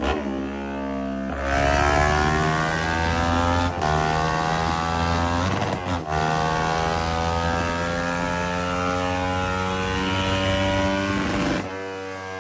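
Kawasaki Ninja 500's parallel-twin engine running under throttle. It gets louder about a second and a half in, the pitch climbs and dips with brief breaks near four and six seconds, and it eases off near the end.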